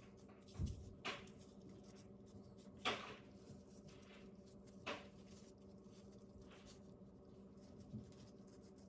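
Quiet room with a steady low hum and a handful of soft, sharp knocks and clicks a second or two apart, the first a dull thump.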